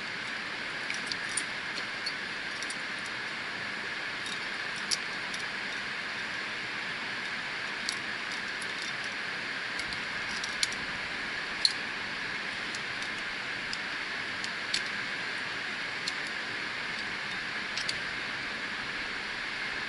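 Climbing hardware clinking: scattered sharp metallic clicks of carabiners and quickdraws knocking together on a climber's harness as the climber moves up the rock, over a steady hiss.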